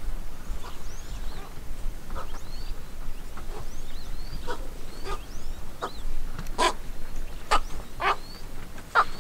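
Wild birds calling: short, harsh calls repeat every half-second or so and grow louder in the second half, among thin, high chirps, over a low rumble.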